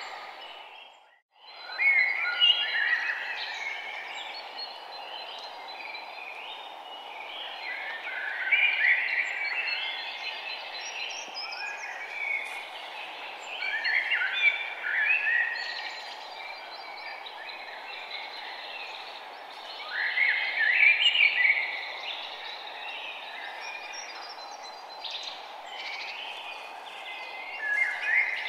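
Birds chirping in short clustered phrases every few seconds over a steady background hiss, a nature ambience. The sound fades out briefly about a second in, then returns.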